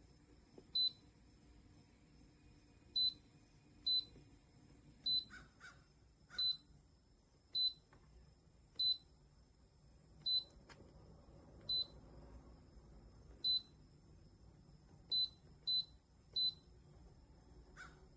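Dreo smart humidifier's control panel beeping as its buttons are pressed: about thirteen short, high beeps at uneven intervals, some in quick pairs, over a faint steady hum.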